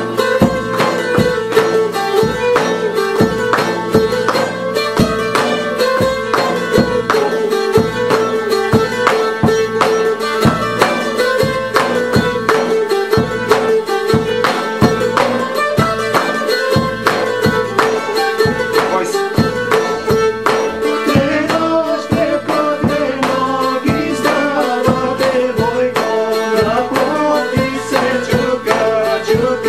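Bulgarian tambura strummed and plucked continuously in the uneven Treno rhythm, quick repeated strokes over a ringing drone string.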